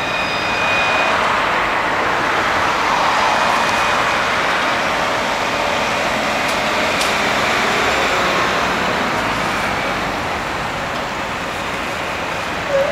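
Alstom Citadis 302 tram pulling away from the stop and rolling off, its motor whine stopping about a second in, over a steady noise of city traffic. A short sharp sound comes near the end.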